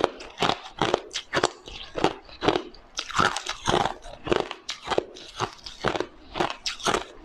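Frozen matcha ice being bitten and chewed close to the microphone: crisp, sharp crunches about twice a second as the ice cracks between the teeth.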